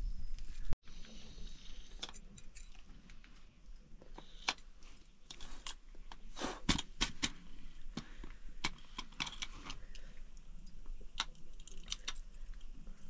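Aluminium cooking pots and their lids clinking and clattering as they are handled and set down: an irregular string of sharp metal knocks, the loudest a little past the middle.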